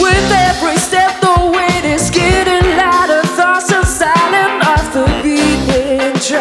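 Live band playing a song: a sung lead melody over a drum kit, keyboards and guitar, with steady drum hits throughout.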